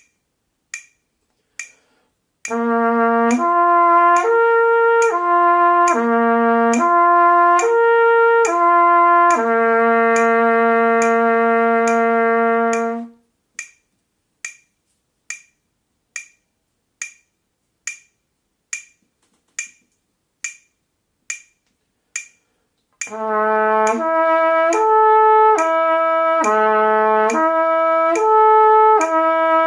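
Trumpet playing a slow lip-slur flexibility exercise: slurred quarter notes stepping up and down across the first three harmonics with the valves open, ending on a long low note, over a metronome clicking at about 70 beats a minute. After about ten seconds of metronome clicks alone, the trumpet plays the same pattern a half step lower with the second valve down.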